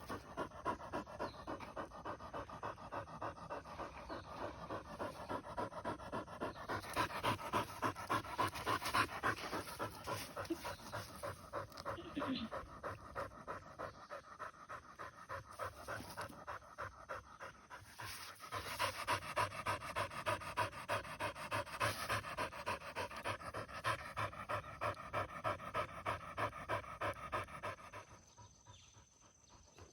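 An English setter panting hard and fast, about three breaths a second, close to the microphone. The panting eases off near the end.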